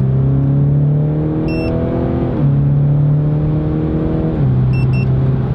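A power-upgraded Audi SQ5's V6 engine pulls hard at full throttle for an 80–120 km/h acceleration run, heard from inside the cabin. Its pitch climbs steadily and drops at quick upshifts about two and a half seconds in and again near four and a half seconds. Short electronic beeps sound once early on and twice near the end.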